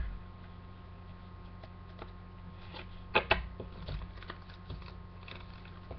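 Handling noise of Pokémon card booster packs and cards on a tabletop: a few scattered light taps and rustles, the loudest cluster about three seconds in, over a steady low hum.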